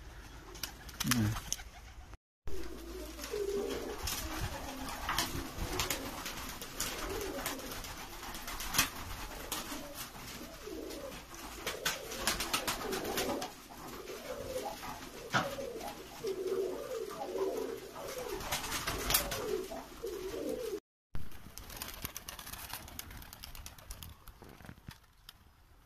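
Several Uzbek tumbler pigeons cooing over and over, with many sharp clicks and taps among them. After a break near the end, only a quieter background remains.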